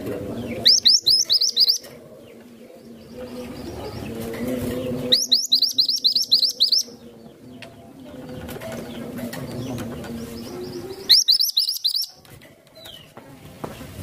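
Minivet singing: three short bursts of rapid, high, falling whistled notes, each burst about a second long, several seconds apart.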